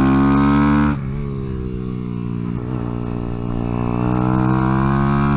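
Kawasaki Z125's single-cylinder four-stroke engine running hard at high revs on track. About a second in the throttle shuts and the revs fall. About three seconds in the revs start climbing steadily again as the bike accelerates.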